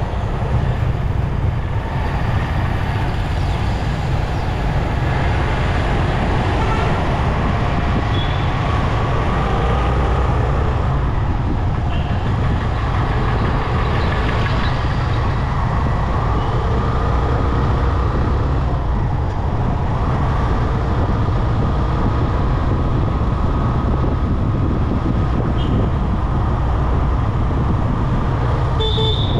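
Motorcycle riding through city traffic: a steady low rumble of engine and road noise, with the sounds of other vehicles passing around it. A short high beep comes near the end.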